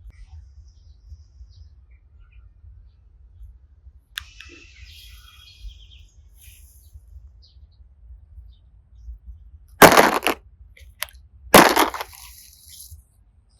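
Hands handling slime and play clay: a sharp click about four seconds in with a short rustle after it, then two loud noisy squishing bursts about a second and a half apart near the end.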